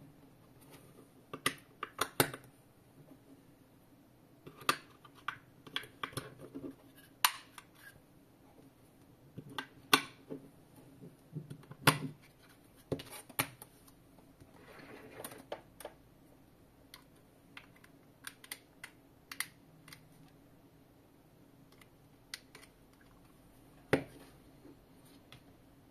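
Batteries being pressed into the spring-loaded bays of a four-slot plastic battery charger: irregular sharp clicks and clacks of the cells snapping against plastic and metal contacts, with light handling rustle.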